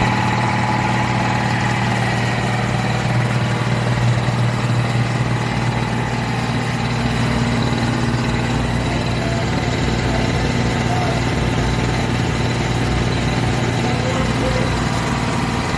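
Bauer Utilus high-pressure piston compressor, driven by a 3 hp single-phase electric motor, running steadily with a strong low hum.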